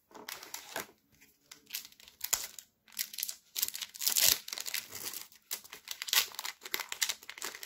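Foil wrapper of a Pokémon TCG booster pack being torn open by hand: a run of short crinkles and rips, the loudest about four seconds in.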